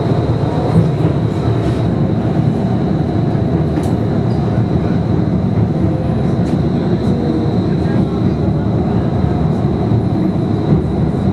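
Portland streetcar running along its track, heard from inside the passenger cabin: a steady, even rumble with a faint high whine held throughout.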